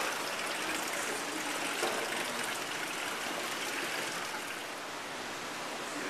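Steady rush of running water in an aquarium touch pool.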